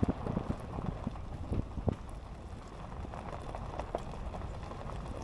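Vehicle driving on a rough road: a steady rumble with many small knocks and clicks, thickest in the first two seconds.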